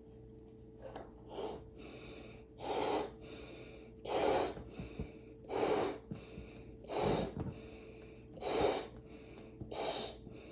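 A person blowing up a rubber balloon: strong puffs of breath about every one and a half seconds, with short intakes of breath between them.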